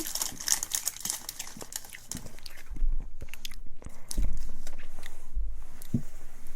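A person chewing and crunching a fruit-flavoured treat close to the microphone, with many small crackly crunches. Low rumbling bumps about three seconds in and again from about four seconds, like the microphone being knocked.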